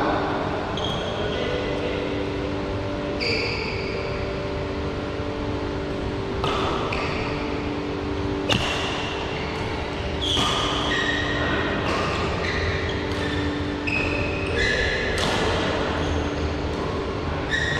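Badminton rally: rackets strike the shuttlecock with sharp cracks, the loudest about eight and a half seconds in, and sneakers squeak briefly on the court floor. A steady low hum runs underneath.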